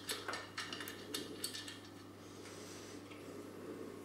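Faint metal clicks and taps of a nut and washer being hand-tightened onto a bolt through a satellite dish's mounting bracket, several in the first two seconds, then quieter.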